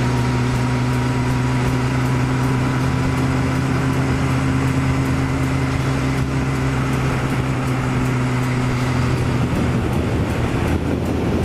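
Honda CB1100SF X11's inline-four engine running at a steady cruise under way, over rushing wind noise. The steady engine note breaks up and changes about ten seconds in.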